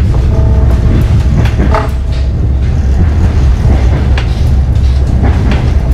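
Loud, steady low rumble with a hiss over it. A brief pitched sound comes about half a second in and another near two seconds.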